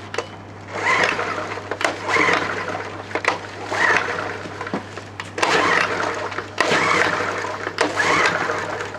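Honda portable generator's recoil starter pulled over and over, about once a second, the engine spinning briefly with each pull but never firing: a cold start failing after the generator has sat for months.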